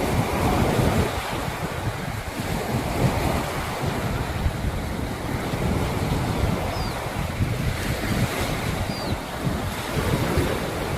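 Sea waves washing onto the shore, with wind buffeting the microphone in gusts.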